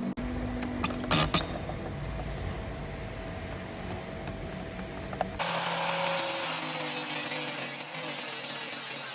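Power tools working wood: a tool runs with a few sharp knocks about a second in, then about five seconds in the sound cuts abruptly to a louder, steady hissing tool noise.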